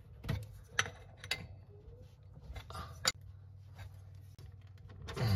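A handful of small clicks and light knocks as hands and a wrench handle the chrome water-valve fittings and the plastic Aquastop hose connector, checking the connections for tightness.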